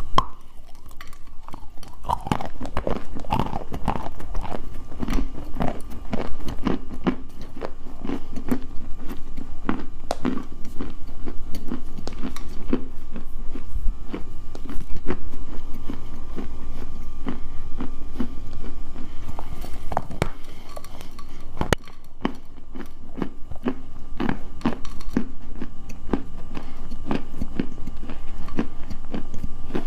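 Someone biting and chewing hard, dry edible clay: a long run of crunches that come quickly and irregularly.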